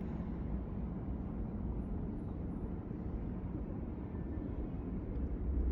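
Steady low outdoor rumble of background noise, with no sharp bangs.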